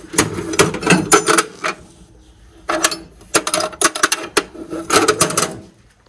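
Steel hitch parts and chains clanking and rattling as they are handled. The clatter comes in several bursts with short pauses between them.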